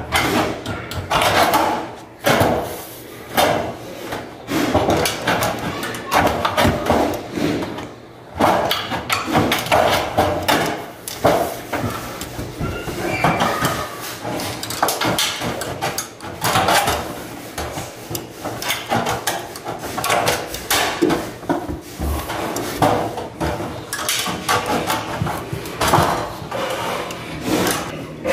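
Irregular knocks and taps of floor-tile installation, tiles being tapped and set in place, several knocks a second.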